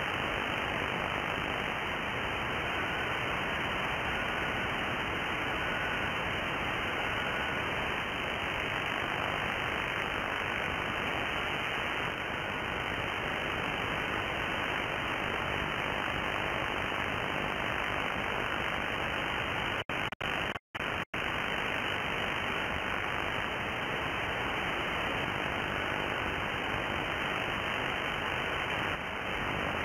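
Steady receiver hiss from a 2 m (144 MHz) SSB WebSDR receiver, with no treble above the receiver's passband. A faint FT4 digital-mode tone near 1.5 kHz comes and goes in the first several seconds, carried by scatter off a passing aircraft. The audio cuts out briefly a few times about twenty seconds in.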